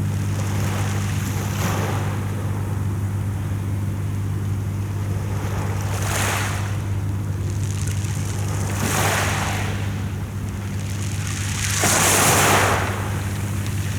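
Sea waves washing in, each one a hissing swell, three times, the last and loudest near the end. A steady low hum runs underneath.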